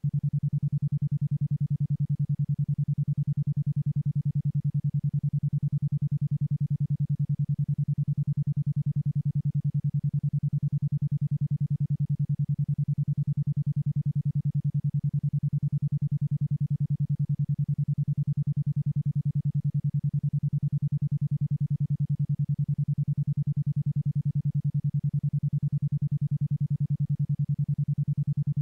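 Isochronic tone at 10.2 Hz: a single low steady tone switched on and off about ten times a second in an even, unbroken pulse, a brainwave-entrainment tone in the alpha range.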